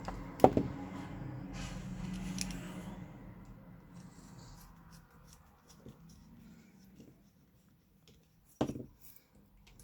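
Small parts and tools being handled on a workbench: a sharp knock about half a second in, a couple of seconds of rustling and scraping, then quieter clicks and another knock near the end.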